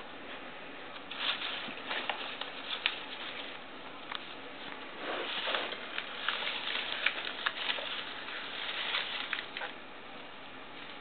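Shredded paper and a plastic bag liner rustling and crinkling in irregular bursts of crackles and clicks as a kitten treads and noses through them, starting about a second in and stopping shortly before the end.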